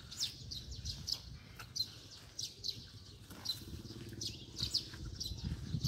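Small birds chirping: short high chirps repeated about three times a second, over a faint low rumble.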